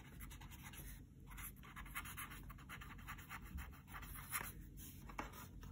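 Pen writing on ruled notebook paper: faint, quick scratching strokes of the nib across the page.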